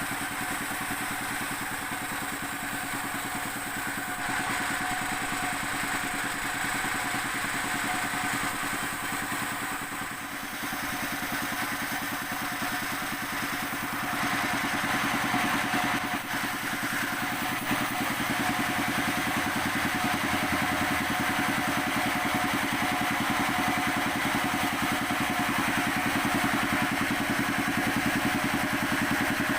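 Sawmill saw machinery running steadily, with a motor's steady hum under it; it gets louder about halfway through.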